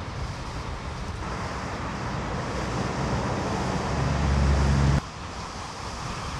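Tram running with a steady rumble that grows louder into a low hum, then stops abruptly about five seconds in. Wind noise on the microphone throughout.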